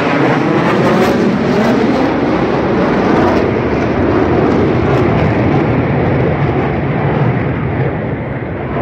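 Aircraft flying low overhead, a loud, dense engine noise that sweeps past in the first few seconds and eases slightly toward the end.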